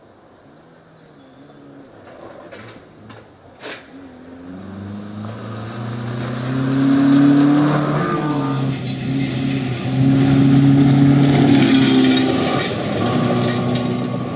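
Mitsubishi Colt 1600-class rally car's engine at high revs, coming closer and passing on a gravel stage, with a brief drop in revs about midway. Gravel spraying and crackling under the tyres near the end.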